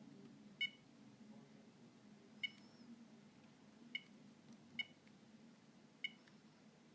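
Keypad key-press beeps of a Philips Savvy mobile phone: five short, high beeps at uneven intervals, as its buttons are pressed.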